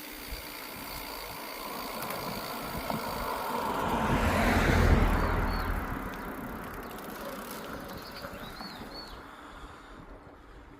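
A road vehicle passing by: its engine and tyre noise swells to a peak about five seconds in, then slowly fades away.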